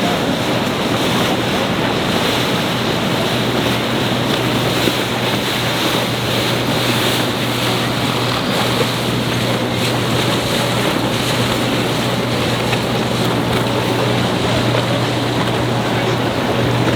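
Boat engine running with a steady low hum, under a constant rush of wind on the microphone and moving water.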